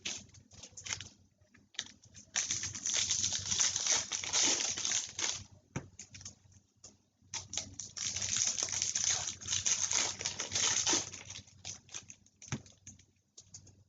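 Baseball trading cards being handled: cards sliding and flicking against each other as a stack is thumbed through, in two long rustling stretches with short flicks and taps between.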